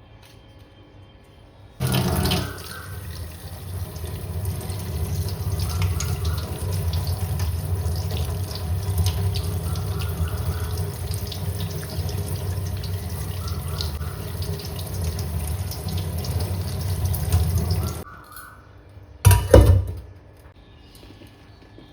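Kitchen tap running water into a sink, turned on about two seconds in and shut off about sixteen seconds later. A brief loud thump follows a moment after.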